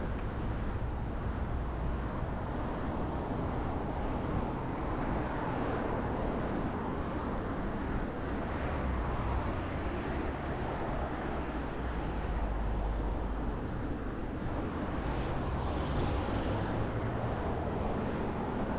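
Steady outdoor rumble and hiss picked up by a body-worn action camera while running, strongest in the low end.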